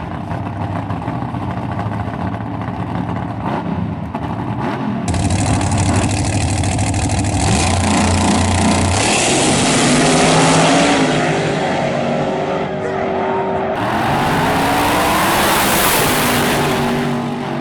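Drag race car engines running and revving hard, their pitch climbing as they accelerate. The sound changes abruptly twice, about five seconds in and again about fourteen seconds in.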